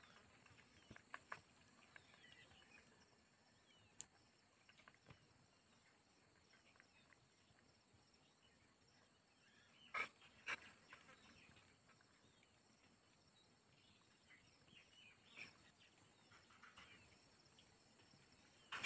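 Near silence with a cat lapping milk from a steel bowl: faint, scattered small clicks, the two sharpest about ten seconds in.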